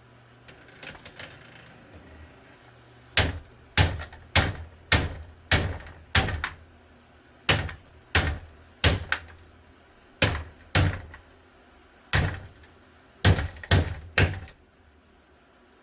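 Plastic box fan being smashed: a run of about sixteen sharp blows, roughly two a second with a couple of short pauses, starting about three seconds in and ending shortly before the end.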